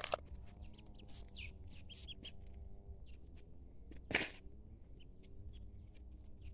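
Ducklings peeping in short high chirps, with scattered small clicks. One louder short rustle comes about four seconds in.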